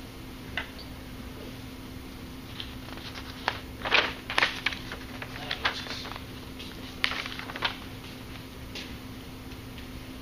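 Students writing notes: pens and pencils scratching, with paper and desk rustles and taps. They come as scattered short scratches, mostly in the middle of the stretch, the loudest about four seconds in, over a steady low hum.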